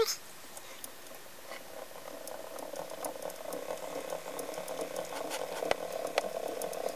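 Edison A250 phonograph spring motor under test after repair. There is light irregular clicking, and a steady hum builds from about two seconds in as it is cranked and runs.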